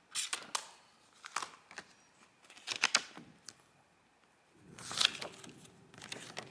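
A paper code insert and a plastic disc case being handled: about four short bursts of paper rustling with light clicks, the loudest about five seconds in. A faint steady low hum comes in near the end.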